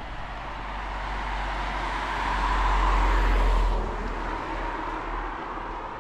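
A car driving past, the noise of its engine and tyres building up and loudest about three and a half seconds in, then dropping away.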